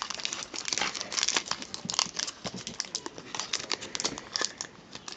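Foil wrapper of a Pokémon card booster pack crinkling and crackling as hands peel it apart and handle it, in many small irregular crackles.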